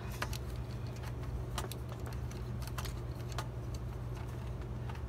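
Scattered light clicks and taps of hands working on the metal PC case to free an expansion card, over a steady low hum.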